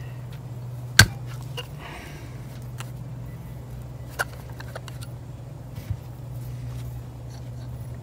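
Sharp metal clicks as a screwdriver works at the underside of a small carburetor body to remove its drain valve: the loudest click about a second in, another about four seconds in and a lighter knock near six seconds. A steady low hum runs underneath.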